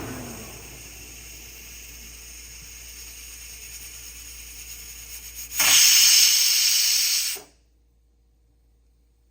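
Pressure cooker on the stove hissing steam steadily. About five and a half seconds in, its whistle blows: a loud, high rush of steam for nearly two seconds that cuts off abruptly, a sign that pressure has built up inside.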